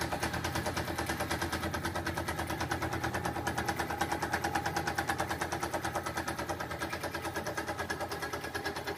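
Walker-Turner 900 series drill press running, driven by its Brown & Brockmeyer electric motor, with a steady hum and a fast, even pulsing beat. The machine has fresh bearings and is greased, and it is running freely.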